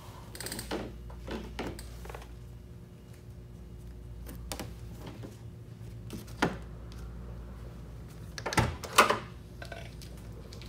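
Dodge Charger's trunk being popped open: a cluster of sharp latch clicks and knocks about nine seconds in as the lid releases, after a few lighter clicks, over a steady low hum.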